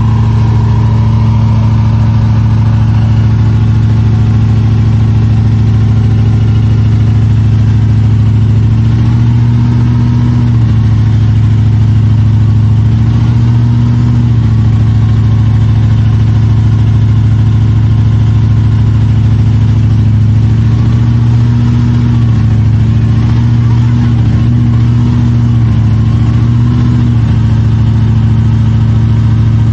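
Old Ford truck's engine running loud and steady at a held speed, its pitch rising a little and settling back several times.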